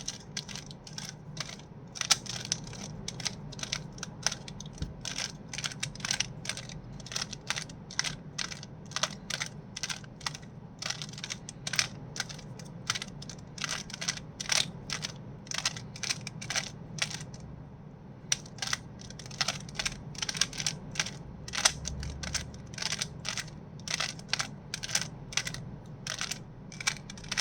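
Rubik's cube being turned by hand: rapid, irregular plastic clicks and clacks as the layers are twisted, several a second, with a brief let-up a little past halfway. The moves are twisting the last-layer corners into place.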